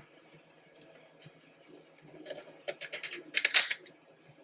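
Light clicks and rubbing of 3D-printed plastic barrel parts being handled and fitted together, with a cluster of clicks from about two seconds in.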